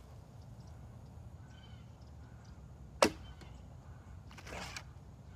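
A Toelke Chinook recurve bow being shot: the string releases the arrow with a single sharp snap about three seconds in. A softer, longer noise follows about a second and a half later.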